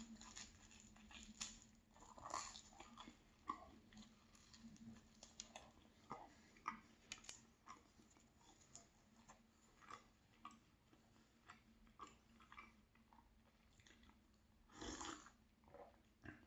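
Faint chewing of a light, fluffy chocolate pastry, heard as scattered soft clicks and small crunches.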